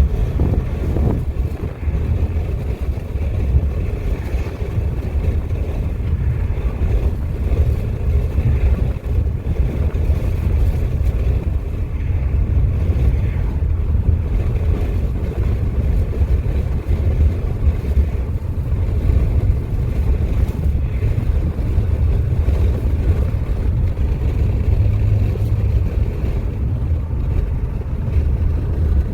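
Wind buffeting the microphone: a loud, steady low rumble with a fainter hiss above it.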